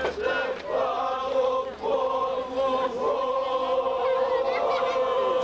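A group of voices singing together in unison, drawing out long held notes with short breaks between phrases.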